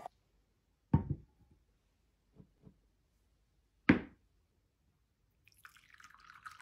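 A knock on a wooden board about a second in, then a louder knock about four seconds in as a small ceramic cup is set down on the board. From about five and a half seconds, coffee pours from the stainless-steel moka pot into the cup in a steady trickle.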